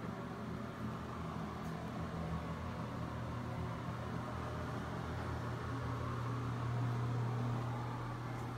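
A fan's steady low hum with a soft hiss, swelling slightly about seven seconds in.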